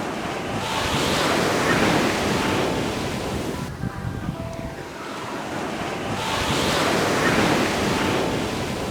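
Ocean waves breaking and washing up a beach: two surges of surf, each swelling and then ebbing, about five seconds apart.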